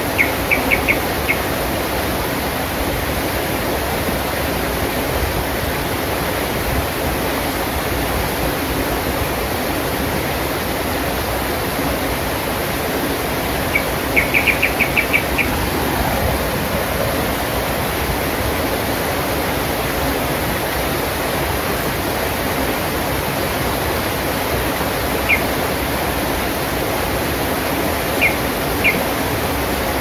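Shallow rocky river rushing steadily over boulders and small cascades. A bird calls over it in short runs of quick, high chirps near the start and about halfway through, with a few single chirps near the end.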